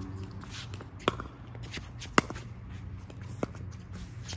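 Pickleball rally: paddles striking the plastic ball, three sharp pops about a second apart, the middle one loudest, with footsteps scuffing on the hard court.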